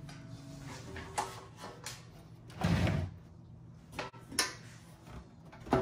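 Handling noises while parts and cables of an opened desktop computer are moved: a string of separate clicks and knocks, with a louder clatter nearly three seconds in, over a steady low hum.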